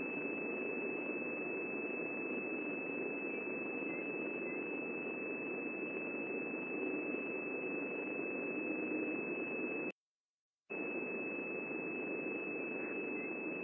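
A steady high-pitched electronic whine over even background hiss, which cuts out completely for under a second about ten seconds in. A few faint chirps show through the hiss.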